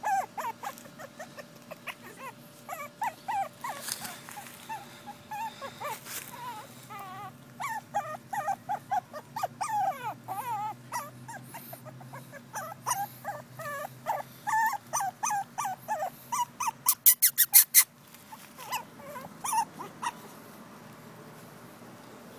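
Pekingese puppies whimpering and whining in many short, high, wavering calls. About three-quarters of the way through comes a quick run of about eight sharp clicks, the loudest sound; the whimpering stops near the end.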